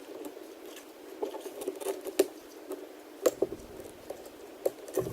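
Small clicks, taps and crackling from hands working on an iPad mini, peeling off a strip of adhesive tape, with a sharper click about two seconds in and another just after three seconds.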